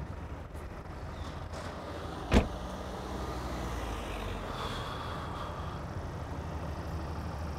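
A car door, the driver's door of a BMW M4 coupé, slams shut once about two seconds in, over a low steady vehicle hum.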